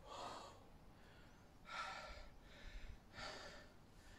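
A man breathing hard while doing bodyweight squats: three faint, forceful breaths about a second and a half apart.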